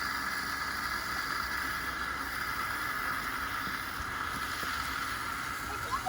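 Steady outdoor background noise: a constant hiss with a low rumble and no distinct events.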